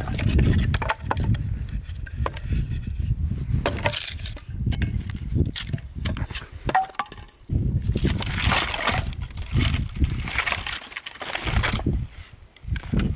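Freshly split wooden kindling sticks clattering and knocking together as they are picked up and gathered into an armful, irregular dry knocks with scraping and splintery rustling.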